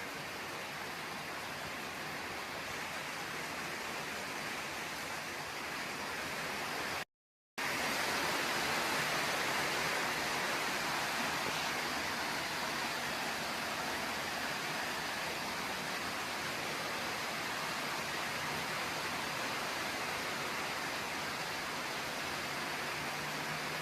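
Steady heavy rain hissing, with a brief complete break about seven seconds in.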